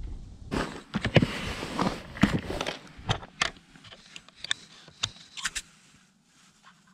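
A hand rummaging through a plastic tackle box: small zip-top bags crinkling and jig heads clicking against the tray. Sharp clicks and rustles come thick at first, then thin out near the end.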